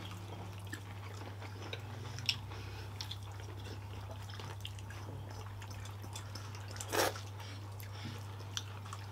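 People eating with their hands: soft chewing and small clicks of fingers and food against plates, over a steady low hum, with one louder short sound about seven seconds in.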